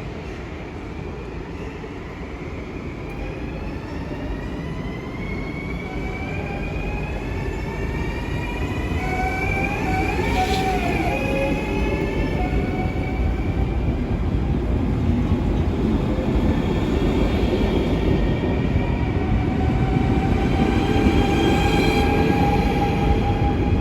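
VIRM double-deck electric train pulling away, its traction motors giving several whining tones that rise slowly in pitch together over a low rumble, with a short tangle of tones bending up and down about ten seconds in. It grows steadily louder as the train gathers speed. This is an unusual, strange-sounding acceleration for this train type.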